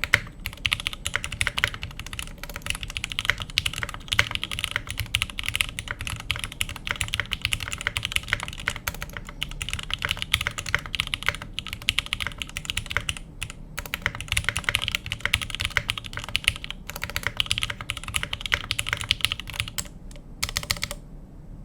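Computer keyboard being typed on continuously, a rapid, uneven stream of key clicks, which stops abruptly just before the end.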